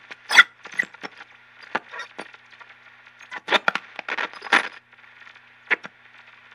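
Irregular sharp crackles and clicks, about a dozen scattered through it, over a faint steady hiss.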